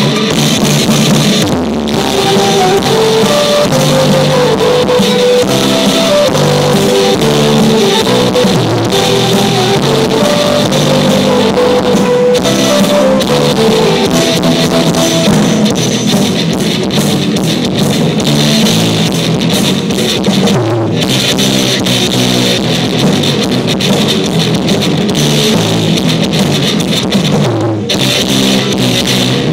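A pop band playing live on drum kit and electric guitar, recorded through a cheap mobile phone's microphone, so the sound is thin with little bass.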